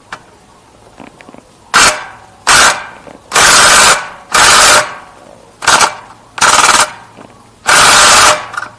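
Impact wrench hammering at a motorcycle engine mounting bolt in seven short bursts, each under a second long with short pauses between.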